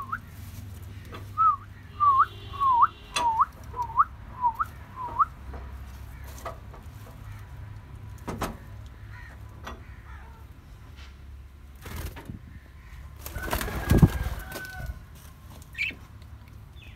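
Caged birds calling: a run of about eight short whistled notes, each rising sharply at its end, over the first five seconds, with a low steady hum underneath. A brief rustle comes about fourteen seconds in.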